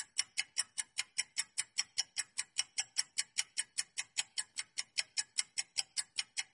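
Clock-ticking sound effect for a quiz countdown timer: rapid, even ticks, about six a second, marking the time left to answer.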